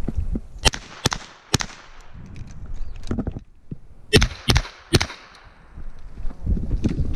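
Gunshots fired in two quick strings of three, each shot about half a second apart: one string about half a second in, the next about four seconds in.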